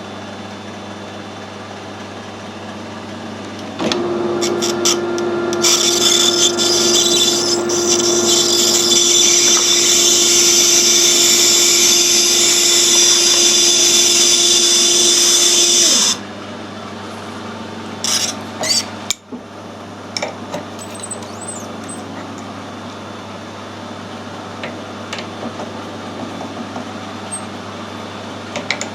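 Metal lathe running under power while a tailstock-held die cuts a thread on a high-tensile steel stud. About four seconds in, a louder stretch begins with a steady whine and a hiss; it stops about twelve seconds later, leaving a quieter steady hum with a few small clicks.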